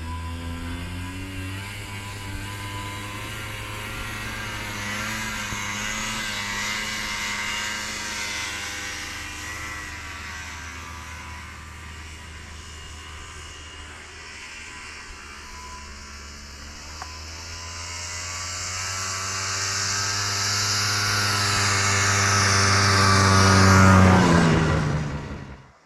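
Snowmobile engine running, growing louder as it comes closer, its pitch dropping as it passes near the end before the sound fades quickly.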